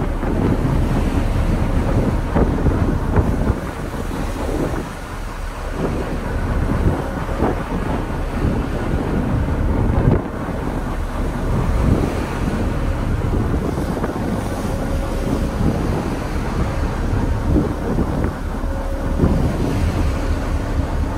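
Gusty wind buffeting the microphone on a ferry's open deck, over the steady rush of water along the hull and the ferry's low running noise.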